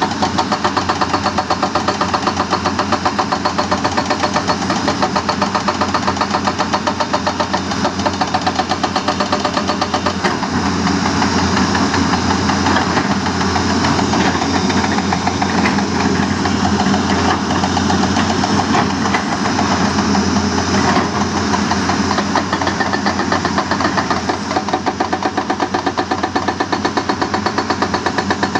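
Excavator-mounted hydraulic rock breaker hammering hard stone in rapid, even blows, over the machine's running diesel engine.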